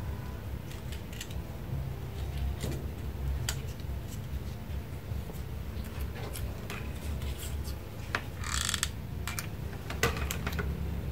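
Handling of paper craft pieces as they are glued into place: scattered small clicks and taps with short paper rustles, the loudest rustle about eight and a half seconds in, over a low steady hum.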